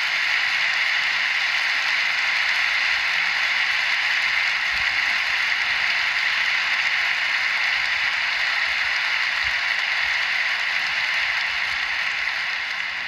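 A large audience applauding steadily, the clapping tailing off near the end.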